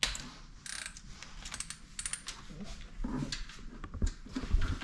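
Irregular light metallic clicks and clinks of hand tools working on metal: rocker arms being unbolted from the cylinder head of a C5 Z06 Corvette's LS6 V8.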